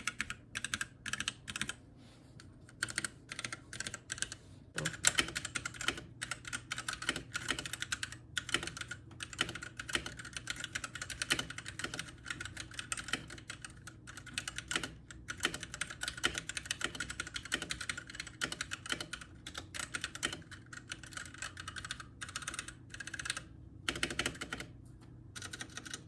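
Typing on a Womier K87 mechanical keyboard with Gateron Red linear switches: a fast, steady run of key clicks, slower and sparser in the first few seconds. The typing is crisp.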